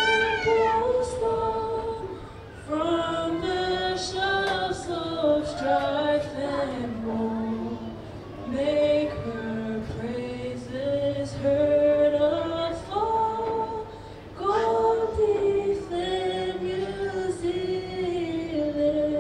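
A woman singing a national anthem, one melody line in long held notes, with short breaks between phrases about every six seconds.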